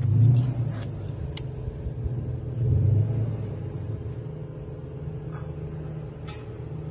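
A vehicle engine idling with a steady low hum. It swells louder briefly twice, just after the start and about three seconds in.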